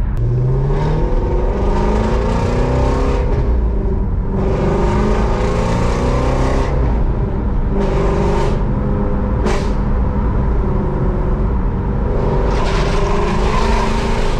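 Shelby GT350's 5.2-litre flat-plane-crank V8 heard from inside the cabin, accelerating with its exhaust valves open through catless mid-pipes. The revs climb at the start, then surge and drop off several times. The exhaust is loud, and the owner suspects a small leak at the mid-pipe joint is making it sound a little weird.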